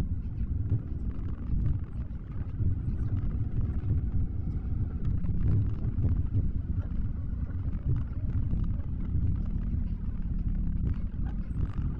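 Car being driven, a steady low rumble of road and engine noise.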